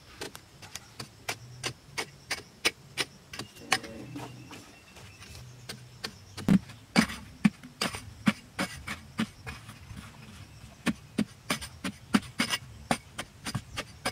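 A hand tool repeatedly striking and chipping hard, dry clay soil while a hole is dug out, with clods falling. Irregular sharp knocks come about two a second, with short pauses, and are loudest around the middle.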